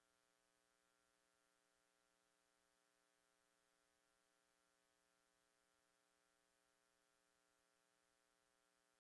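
Near silence: only a faint, steady electrical hum with light hiss.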